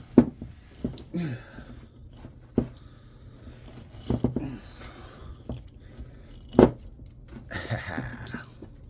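Copper windings being pulled out of an electric motor's stator by hand: irregular sharp clicks and scraping of copper wire against the metal core, with a few louder snaps.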